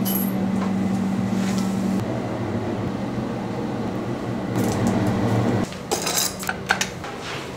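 A steady low hum that stops about three-quarters of the way through. Then a bunch of keys on a ring jingles and clinks as they are picked up out of a bowl.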